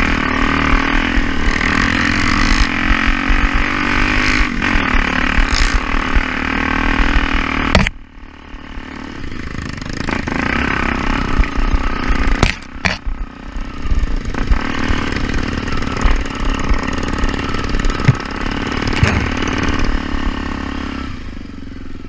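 Trail motorcycle engine running hard and revving. The sound cuts off abruptly about eight seconds in, then builds up again and fades toward the end.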